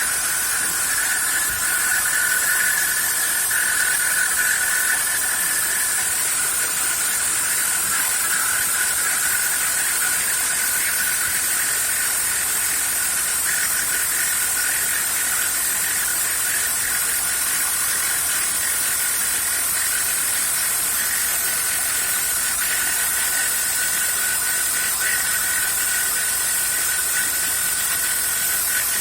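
DIY CNC router spindle running with a three-flute aluminium end mill cutting, a steady high-pitched whine over a hissing cutting noise.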